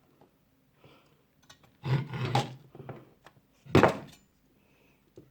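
Handling noises while fitting a graphics-card cooler bracket: a scraping, rustling stretch about two seconds in, then a single loud thump a little before four seconds in.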